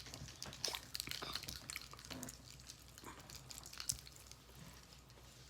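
Quiet eating of Dungeness crab: faint chewing with scattered small clicks as the crab is picked at, the clicks thinning out toward the end.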